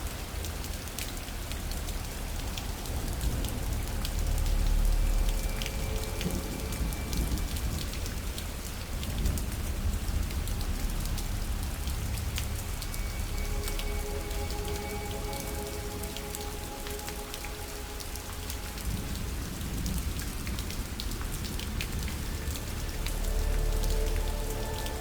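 Steady rain falling on a surface, with many sharp individual drop ticks, and low rumbles swelling about five seconds in and again near the end. Faint held music notes sit softly underneath.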